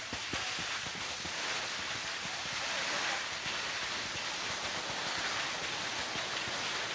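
Skis sliding over packed snow: a steady scraping hiss with small ticks and crunches, a little stronger around the middle.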